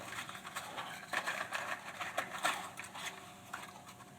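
Scattered light clicks and rustling of a small cardboard box and its contents being opened and handled.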